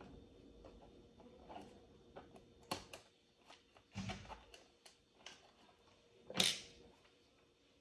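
Light clicks and taps as hands handle wires and small LED circuit boards inside a hollow plastic star-shaped lamp shell. There is a soft knock about four seconds in and a louder brief scrape about six and a half seconds in.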